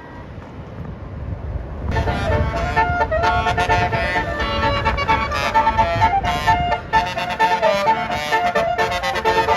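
Bus's Basuri telolet horn starting about two seconds in and playing a quick tune of changing horn notes, over a low engine rumble.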